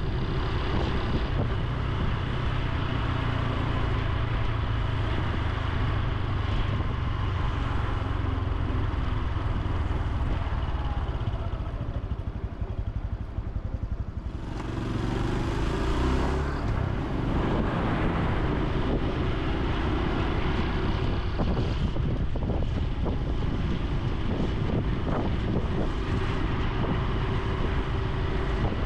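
Honda Super Cub C125's single-cylinder engine and exhaust running while riding, mixed with wind on the microphone. It eases off and goes quieter about twelve seconds in, then picks up with rising pitch as the bike accelerates again.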